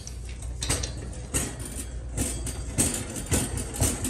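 Shopping cart rolling over a hard store floor: a low rumble from the wheels, with the wire basket rattling about twice a second.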